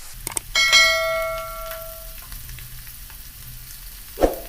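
Prawns frying in hot coconut oil in a kadai as they are turned over. About half a second in, a clank against the pan rings out for about a second and a half over the sizzling, and another sharp knock comes near the end.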